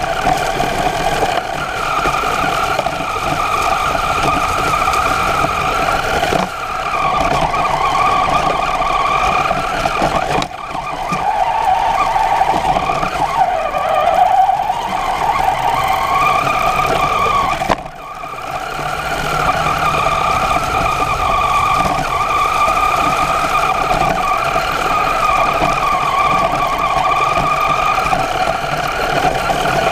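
Radio-controlled truck's motor and gears whining as it drives over grass, the pitch rising and falling with speed. The throttle eases off briefly a few times, most sharply about two thirds of the way through, then picks up again.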